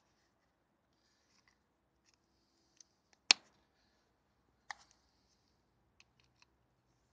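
Screwdriver and small screws clicking against the plastic buttstock of an electric airsoft AK as the screws of the battery-compartment cover are taken out. A few scattered clicks, the sharpest about three seconds in, another about a second and a half later, and faint ticks near the end.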